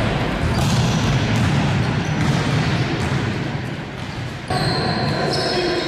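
Volleyball practice in a sports hall: balls being struck and bouncing over and over, echoing around the hall.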